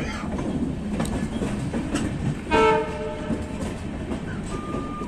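Passenger train running, heard from the coach doorway: a steady rumble with the wheels clicking over rail joints. A train horn sounds once, for under a second, about two and a half seconds in.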